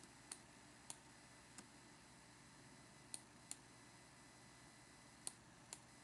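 Seven faint, sharp computer mouse clicks at irregular spacing, two of them in quick pairs, over low room tone.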